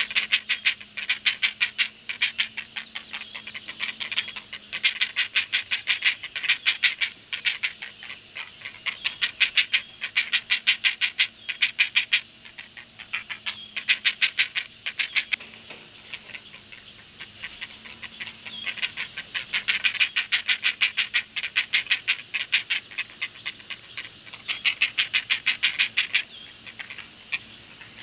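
Great blue heron nestlings begging at a feeding: rapid trains of harsh, clacking calls, several a second, in bouts of a few seconds with short pauses between.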